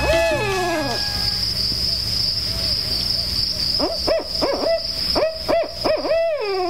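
Owl hooting: a short phrase ending in a falling hoot at the start, then after a pause a quicker run of short hoots that ends in a long falling hoot. A steady high-pitched buzz runs underneath.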